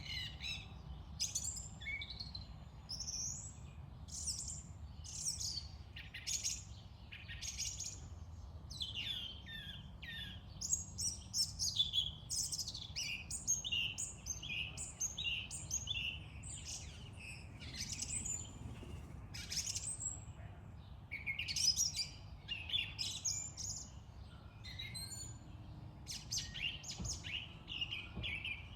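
Song thrush singing: a continuous string of short, varied whistled phrases over a steady low background rumble.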